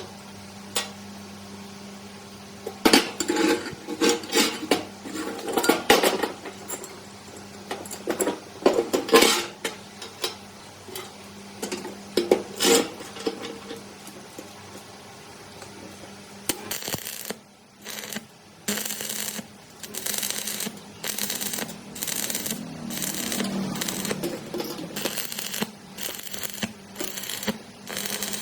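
Hand work on metal parts: scattered metal clinks and knocks, then a run of even rasping strokes, a little over one a second.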